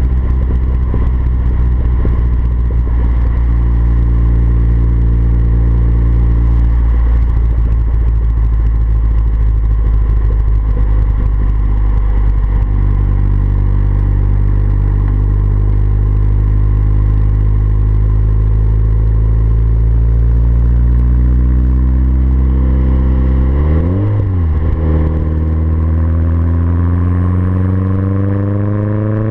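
Renault 9's turbocharged F7R four-cylinder engine running through a 3-inch exhaust at a steady engine speed. Near the end its pitch swings briefly down and up, then climbs steadily as the engine speeds up.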